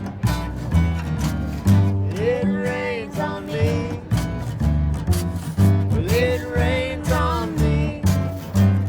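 Acoustic country-folk string-band music: strummed acoustic guitar over a bouncing bass line with a steady beat. A sliding, wavering melody line comes in twice over the accompaniment, about two seconds in and again about six seconds in.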